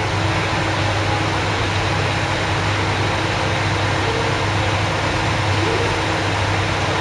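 JR Kyushu KiHa 200 series diesel railcar standing with its diesel engine idling: a steady low hum with a few faint steady tones above it.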